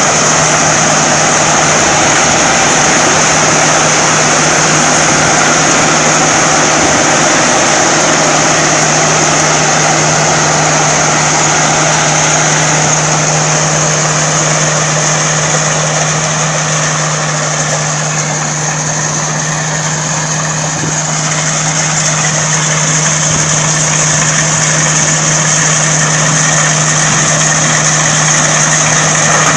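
A corn harvesting machine's engine running steadily under load, with a steady low drone and dense mechanical noise. It eases off slightly for a few seconds past the middle.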